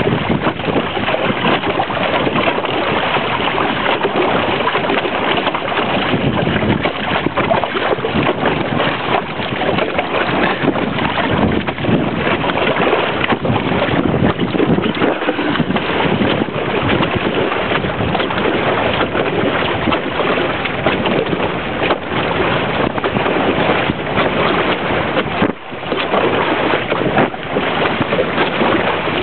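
Water rushing and splashing steadily along the hull of a small outrigger sailing canoe under way, with wind buffeting the microphone.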